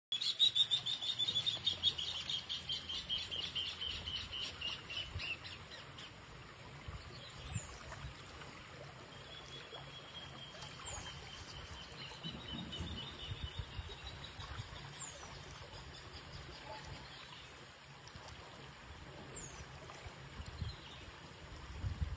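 Birds calling: a fast, slightly falling trill for the first six seconds, a fainter trill again in the middle, and a short high downward chirp about every four seconds, over a low rumble.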